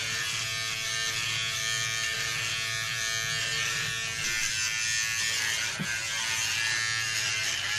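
Electric hair clippers buzzing steadily as they are run over the head, trimming hair.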